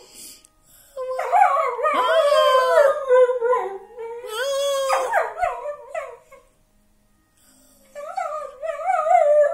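A whippet howling in long wavering howls, with a person howling along. The howling runs for about five seconds, breaks off for a second or so, and starts again near the end.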